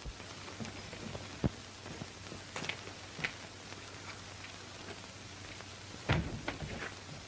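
Steady hiss of an old optical film soundtrack with scattered pops and crackles, the loudest cluster about six seconds in.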